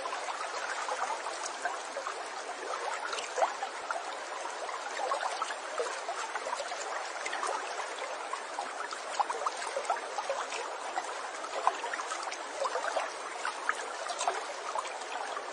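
Steady trickling, babbling water like a small stream, with many small splashes and plinks running through it.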